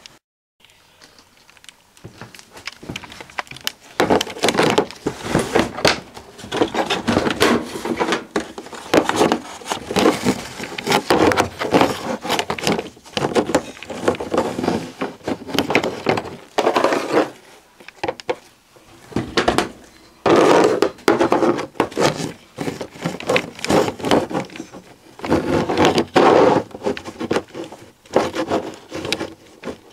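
Close handling noise: irregular rubbing, scraping and knocking, coming in bursts with short lulls, starting a few seconds in.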